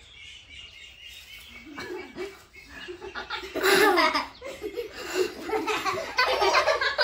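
People laughing. It begins about two seconds in and is loudest about four seconds in and again near the end.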